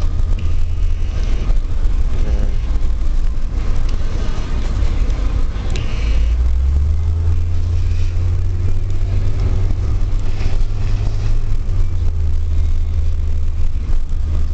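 Car driving: a steady, loud low rumble of engine and road noise.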